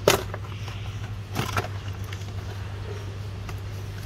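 Plastic steering column cover being pulled off, its clips snapping loose: one sharp click at the start and a few more clicks about a second and a half in, over a steady low hum.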